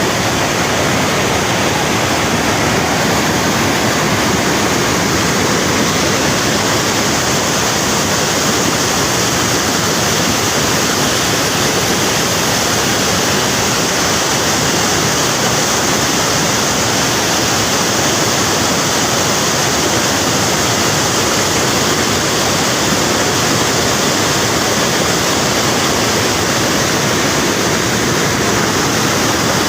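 Rain-swollen mountain stream rushing loudly and steadily, a continuous roar of floodwater with no breaks.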